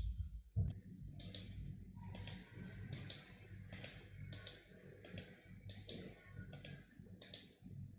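Computer mouse clicking repeatedly, short sharp clicks coming about one to two a second, over a faint low hum.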